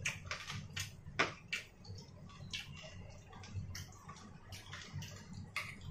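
Eating sounds: a metal spoon clicking and scraping in a stainless steel bowl of rice, with chewing. The clicks come irregularly, several a second, some louder than others.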